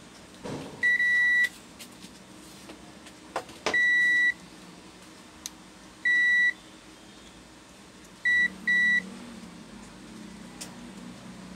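Multimeter continuity beeper sounding five times as the probes touch points around the CPU fan header, testing for a short. There are three beeps of about half a second, then two short ones in quick succession, with a sharp click of the probe just before the second beep.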